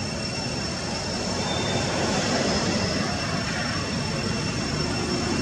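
Steady outdoor background rumble and hiss, slowly growing louder, with two thin steady high-pitched tones running over it.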